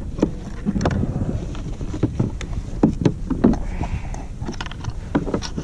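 Plastic kayak under way in shallow water, with wind rumbling on the microphone and irregular knocks and splashes of water against the hull.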